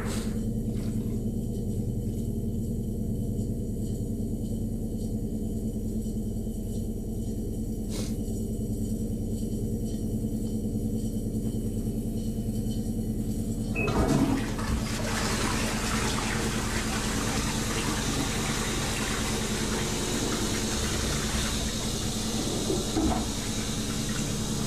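A low steady hum, then about halfway through a toilet flushes, with a long rush of water running on to the end.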